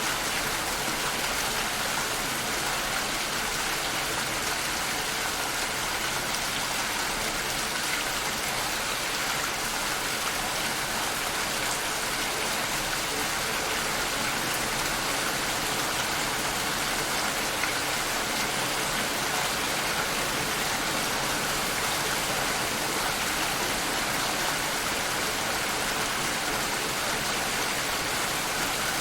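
Steady rain falling, a constant even hiss of many drops with no single drop standing out.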